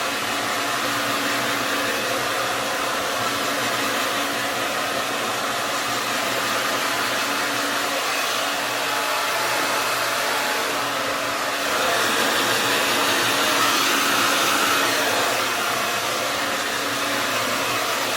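Handheld hair dryer blowing steadily while drying hair, growing a little louder for a few seconds about two-thirds of the way through.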